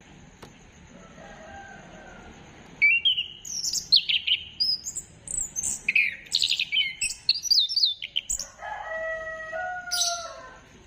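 Chestnut-capped thrush (anis kembang) singing: a loud, rapid, varied run of high whistles and trills starting about three seconds in, followed by a few lower, drawn-out whistles near the end.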